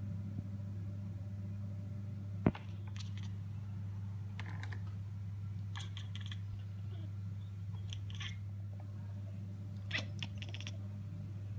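Bengal kittens chattering at something outside the window: five short runs of rapid clicking chatter spaced a second or two apart, the excited sound typical of a cat watching prey it cannot reach. A single sharp tap comes about two seconds in, over a steady low hum.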